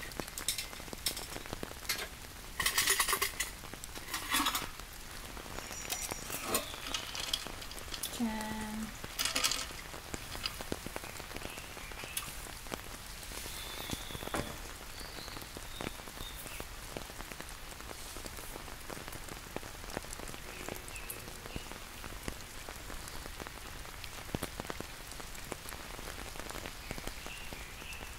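Steady heavy rain falling on a tent shelter, with a few short, louder noises in the first ten seconds.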